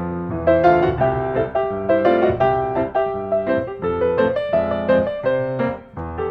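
Background piano music: a steady run of struck notes with sustained chords underneath.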